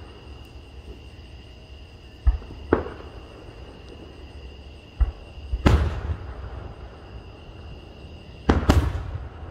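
Aerial firework shells bursting: a pair of booms about two seconds in, another pair around five to six seconds, and a last pair near the end. The louder booms ring on briefly in echo.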